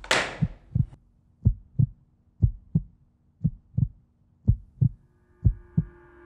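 A heartbeat-like pulse in the soundtrack: a double low thump, lub-dub, about once a second, six times over. A brief falling swish opens it, and a steady held tone comes in near the end.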